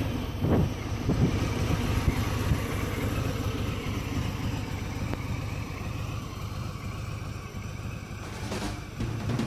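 2018 Harley-Davidson Sport Glide's stock Milwaukee-Eight V-twin riding off: the throttle opens twice in the first second and a half with short rises in pitch, then the exhaust rumble slowly fades as the bike moves away.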